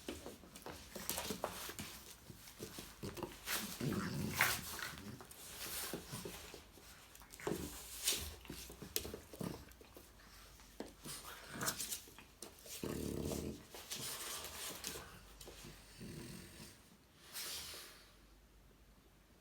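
A French bulldog and a chihuahua at play: irregular scuffling and clicking, with short growls now and then.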